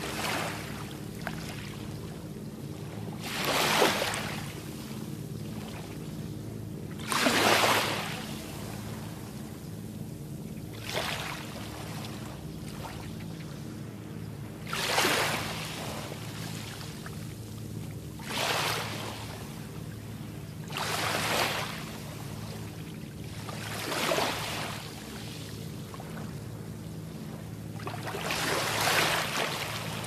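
Small, calm-sea waves washing onto a sandy beach, about eight times, each a hiss that swells and falls away, three to four seconds apart. A steady low hum runs underneath.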